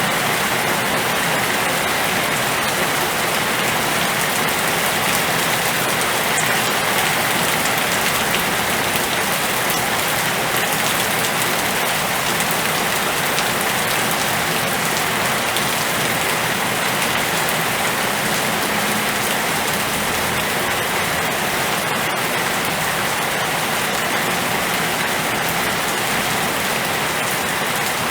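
Storm rain falling steadily: a dense, even hiss of drops on surfaces that does not let up.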